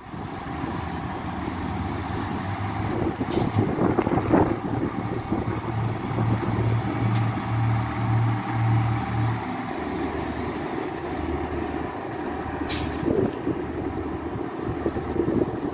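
Irish Rail 2800 class diesel multiple unit idling at the platform: a steady low engine hum, with a stronger pitched note that drops away a little over halfway through. Three brief sharp hissing clicks come through it.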